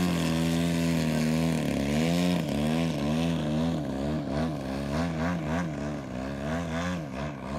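Radio-controlled aerobatic plane's engine and propeller running hard and steady while the plane hangs in a prop hover. From about two and a half seconds in, the pitch rises and falls two or three times a second with quick throttle blips as the plane is held nose-high at low speed.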